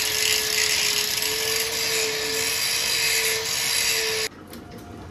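Handheld electric angle grinder grinding into a curved metal pipe: a loud, steady motor whine under a harsh metal-grinding hiss, which cuts off suddenly about four seconds in.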